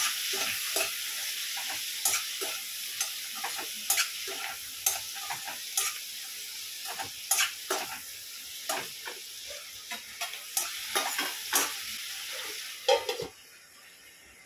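Potato and capsicum pieces sizzling in oil in a stainless steel kadai while a steel spatula stirs them, scraping and clicking against the pan about once or twice a second. About thirteen seconds in there are a few louder metal clanks, and the sizzle falls away sharply as the kadai is covered with its steel lid.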